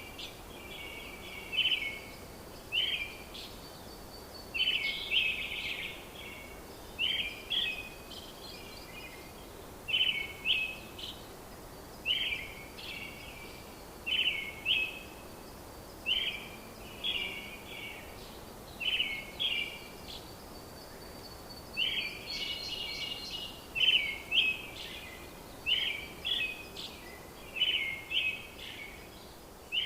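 A bird chirping over and over in short phrases, about one every second or so, over a steady faint outdoor hiss.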